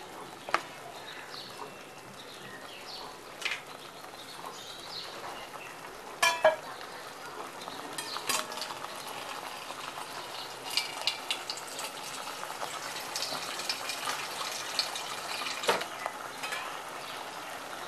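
Chickpeas in a thick tomato-onion masala gravy sizzling in a non-stick pan as they cook, with a spatula stirring and knocking against the pan a few times.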